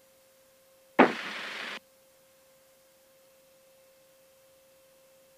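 Aircraft headset intercom feed, nearly silent apart from a faint steady tone. About a second in, the voice-activated intercom opens for under a second, letting through a short burst of noise that starts and stops abruptly.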